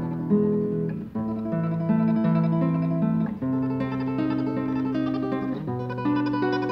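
Nylon-string classical guitar played solo fingerstyle: a tremolo melody of rapidly repeated notes over plucked bass notes.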